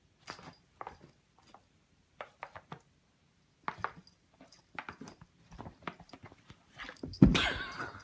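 A run of short knocks and taps that grows busier, then one loud crash with a rattling clatter about seven seconds in.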